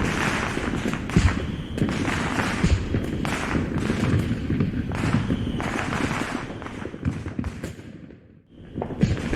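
Fireworks sound effect dubbed onto the footage: a dense run of booming aerial shell bursts with crackle, overlapping almost without a break. It dies away briefly near the end, then starts again.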